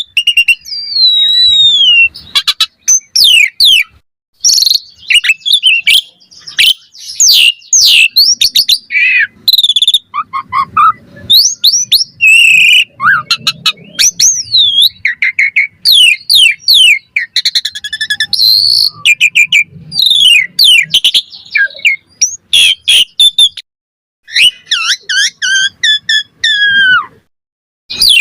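Asian pied starling (jalak suren) in full song: a fast, varied run of loud whistles, rising and falling glides, chattering notes and clicks, broken by short pauses, the longest near the end.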